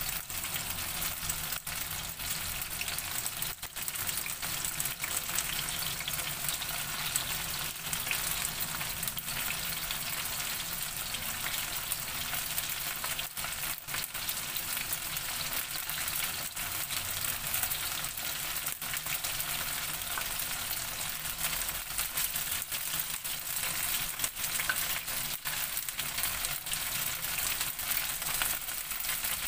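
Chicken intestines deep-frying in hot oil: a steady sizzle with many small crackles as the pieces cook down until dry and crisp.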